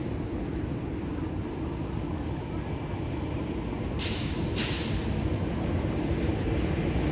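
City bus engine running with a steady low rumble that grows a little louder toward the end, with two short hisses of released air about four seconds in, typical of a bus's air brakes.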